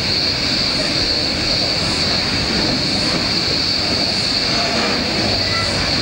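Loud, steady, piercing drone of a cicada chorus, over the low rumble of loaded CXD coal wagons rolling past.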